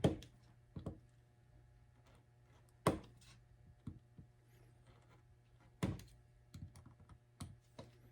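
Sharp snaps and clicks of a bar being cut off an armor strap. Three loud ones come about three seconds apart, with smaller clicks between.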